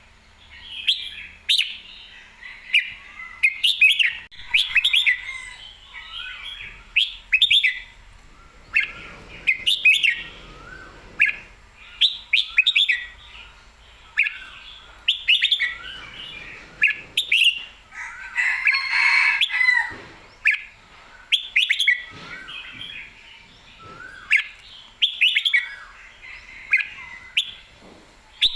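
Red-whiskered bulbul singing, short bright whistled phrases following one another every second or two, with a longer, denser call about two-thirds of the way through. A caged songbird in an excited, competition-ready mood.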